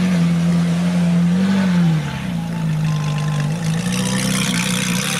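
Ferrari 458 Italia's V8 engine running with light revs. Its pitch rises about a second and a half in, settles lower, blips again briefly midway, then holds steady.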